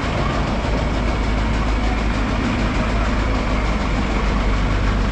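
Engine idling steadily with a deep, even hum.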